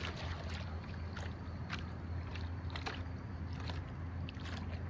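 Water splashing and lapping as a golden retriever swims beside a stand-up paddleboard, with a few short sharp splashes, over a steady low hum.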